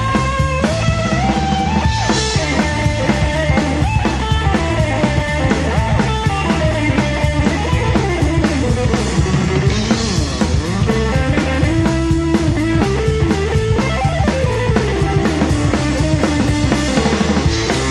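Rock band playing live, an instrumental stretch: an electric guitar lead with sliding notes over a driving drum kit and bass, with cymbal crashes about two seconds and ten seconds in.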